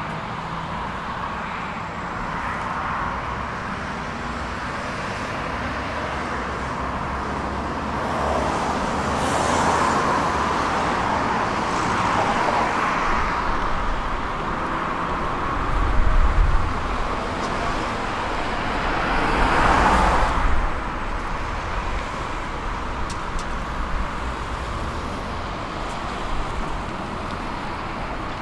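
Steady road traffic: cars driving past with tyre noise, swelling twice as vehicles pass close, and a low rumble about halfway through.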